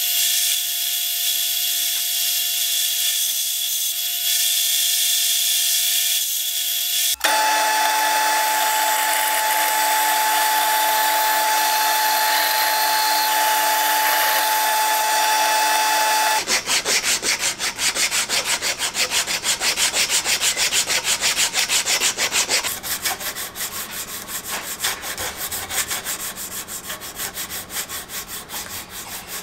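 Wood being worked with tools: a power tool runs steadily, cutting about seven seconds in to another steady tool sound with a slightly higher tone. About sixteen seconds in it gives way to rapid back-and-forth rubbing strokes, as in hand sanding.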